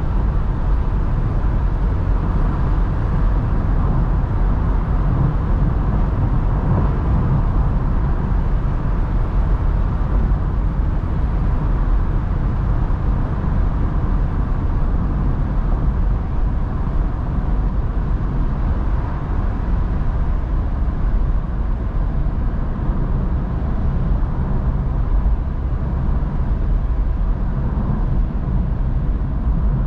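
Steady in-cabin road and wind noise of a 2010 Mazda MX-5 NC cruising at an even speed, its 1.8-litre four-cylinder petrol engine running steadily underneath with a faint constant hum.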